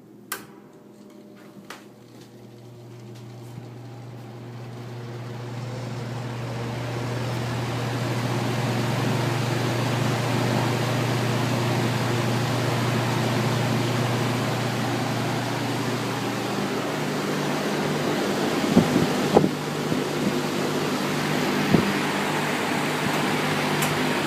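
Lonergan belt-driven box fan switched on with a click, its 1/8 hp Marco shaded-pole motor slowly spinning up over several seconds against the belt's friction, the hum and rush of air rising to a steady run. A few sharp knocks sound near the end.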